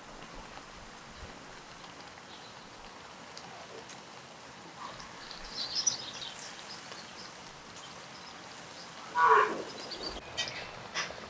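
A single short animal call about nine seconds in, over a steady background, with a few high-pitched sounds a little past the middle.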